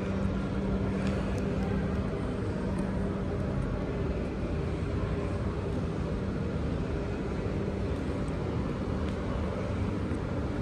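Steady low rumble of an underground railway platform, with a low hum that fades a few seconds in and a few faint taps about a second in.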